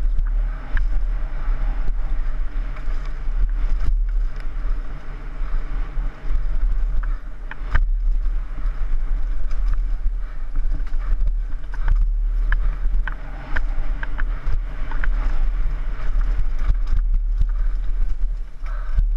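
Downhill mountain bike descending a dirt trail, heard from a helmet-mounted camera: a steady low rumble of wind on the microphone over tyre noise on dirt, with frequent sharp clatters and knocks from the bike over bumps.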